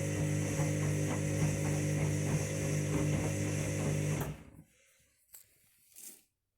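Washing machine's drum motor running during the main wash, a steady hum with a faint regular ticking, then cutting off abruptly about four seconds in as the drum pauses between tumbles.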